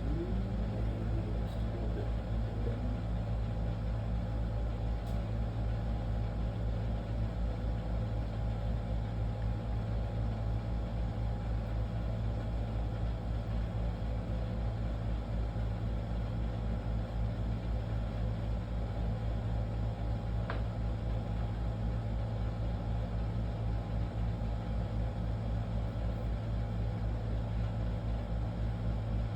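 A steady low machine hum with a fast, even pulse, and a few faint light clicks.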